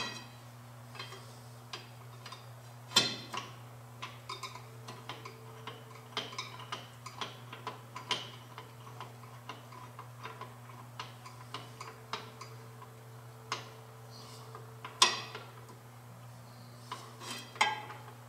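Metal hand tools working on an engine block: irregular light clicks and ticks, roughly two a second in places, with a few louder metallic knocks about three seconds in, about fifteen seconds in and near the end.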